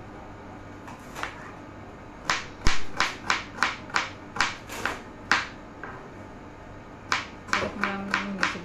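Kitchen knife slicing a red onion on a cutting board: sharp taps of the blade striking the board, about three a second, starting a couple of seconds in, pausing briefly, and starting again near the end.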